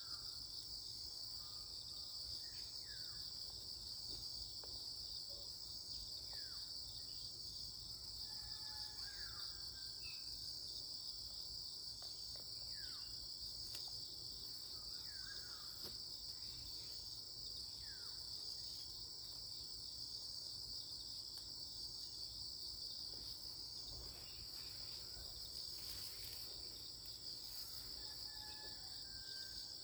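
Steady insect chorus, a continuous high chirring that does not let up. Faint short falling whistles come every second or two.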